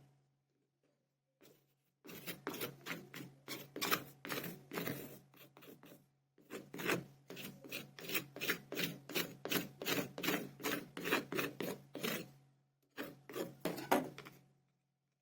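Kinetic sand being scraped and rubbed in quick, even strokes, about two to three a second, in three runs with two short breaks.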